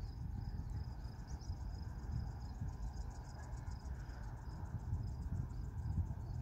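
Crickets chirping in a steady, fast-pulsing trill, over a low uneven rumble.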